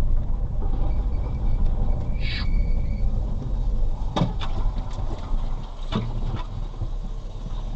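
Low steady rumble of a vehicle, with a brief high squeal about two seconds in and a few sharp knocks later.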